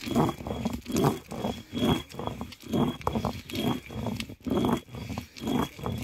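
Cylindrical stone roller of an ammikkal grinding stone rolled back and forth over the flat stone slab, crushing dry ingredients into powder. It makes a rough grating scrape, about two strokes a second.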